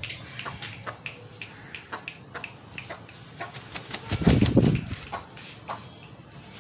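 Aseel rooster beating its wings in one short, loud flurry of rapid wingbeats about four seconds in. Scattered light clicks are heard around it.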